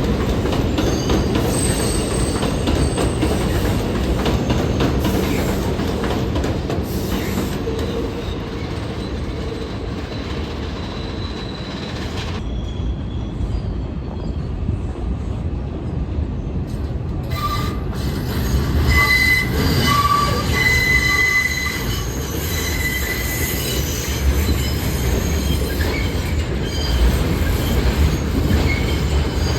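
New York City subway train running through the station with a steady low rumble from the wheels on the rails; in the second half the steel wheels squeal in repeated high tones.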